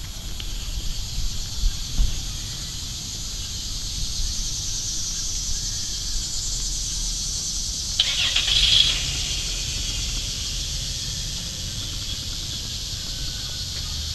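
Outdoor ambience under summer trees: a steady high insect buzz over a low rumble, with a few soft knocks in the first two seconds and a short sharp sound about eight seconds in.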